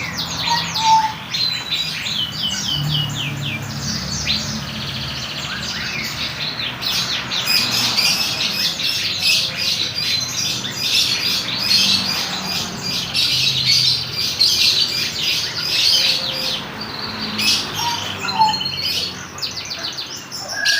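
A young canary practising its song: long runs of rapid, high trills and chirps, almost unbroken through the second half.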